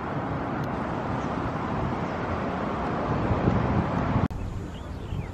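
Steady low outdoor noise of distant road traffic mixed with wind on the microphone. About four seconds in it cuts off abruptly, and a quieter, thinner background takes over.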